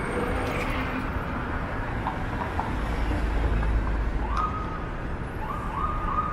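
City street traffic noise, with a low rumble of a passing vehicle about three seconds in. In the second half a distant siren starts up, rising and holding a high tone several times.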